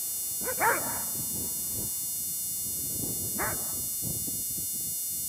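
Doberman giving two short barks about three seconds apart, the first louder.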